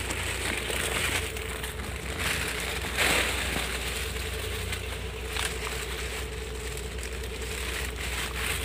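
Footsteps crunching through dry leaf litter and brushing past undergrowth, over a steady low hum.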